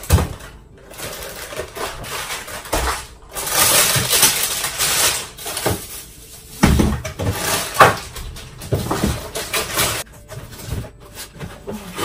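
Packs of frozen food being lifted out and shifted about in plastic freezer drawers: rustling of packaging with scattered knocks and clatters of plastic, the loudest a sharp knock about two thirds of the way through.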